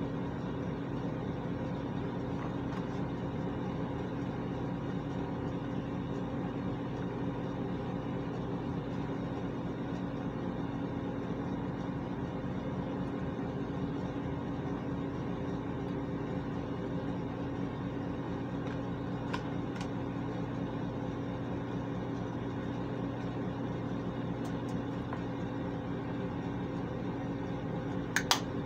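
Steady hum of a bathroom exhaust fan running. A couple of sharp clicks near the end as a makeup compact is handled.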